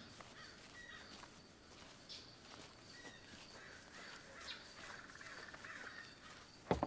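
Faint outdoor ambience with birds calling now and then. Near the end, a sudden knock on a wooden door.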